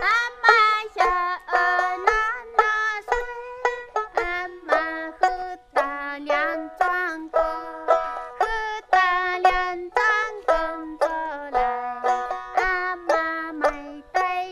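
A lullaby sung in quick, short notes over a plucked string instrument, each note starting sharply and fading.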